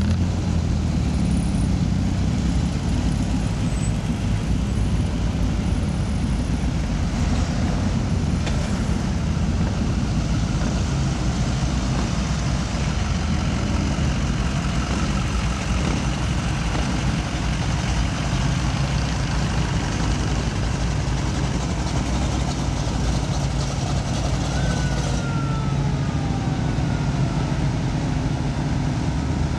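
Engines of a slow line of show cars, hot rods and a pickup truck rolling past at low speed, a steady low engine rumble. A faint falling whine comes near the end.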